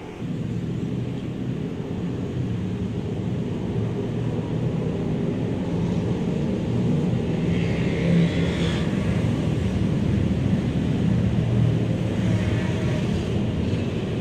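Water from a tap starts suddenly and runs steadily, a low rushing noise, as hands are washed under it.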